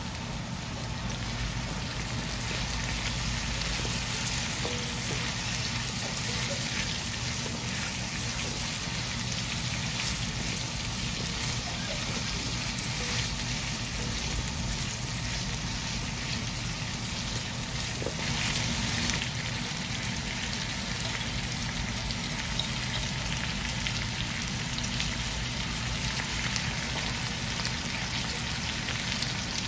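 Vegetables sizzling in a hot wok as they stir-fry: a steady crackling hiss.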